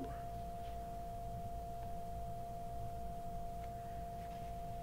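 A steady, faint whine held at one pitch over a low background hum, unchanging throughout.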